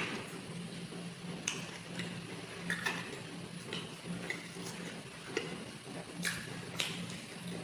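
Close-up eating sounds: short, wet mouth clicks and smacks of chewing at uneven intervals, the sharpest right at the start, over a faint low hum that pulses on and off.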